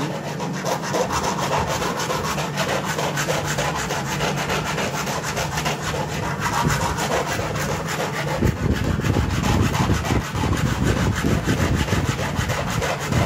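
Hand file scraping back and forth along a cut slot in a sewing-machine template board, in rapid continuous strokes that grow heavier and louder about two-thirds of the way through. This is the slow, laborious hand-finishing of the template's stitch-path slots.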